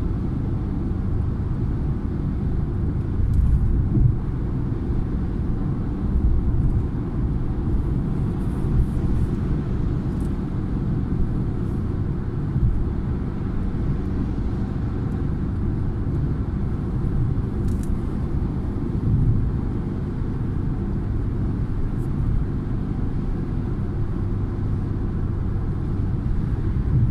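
Car driving at motorway speed, heard from inside the cabin: a steady low rumble of road and engine noise, with a few faint ticks.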